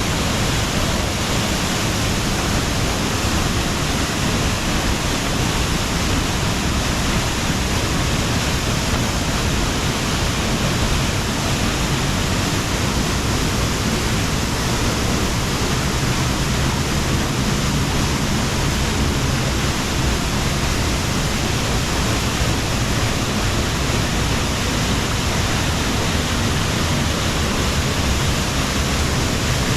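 Steady, loud rush of falling water, an even roar with no breaks or changes.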